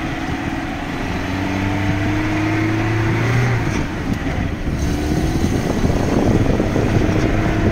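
Lada Niva's engine running as the car drives along a rough dirt track. The engine note rises steadily for about three and a half seconds, then drops, and the noise turns rougher and a little louder in the second half.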